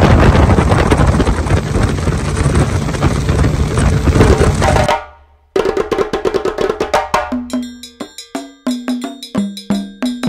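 Speedboat running fast, with a loud steady rush of wind on the microphone and spray, which fades out about five seconds in. After a brief gap, background music with wood-block and drum percussion begins.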